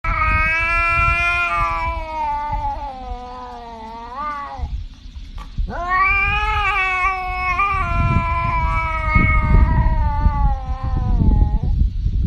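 Tabby cat yowling in two long, drawn-out calls. The first sinks slowly and bends up briefly just before it stops, about four and a half seconds in. The second starts about a second later and lasts about six seconds. A low rumbling noise runs beneath.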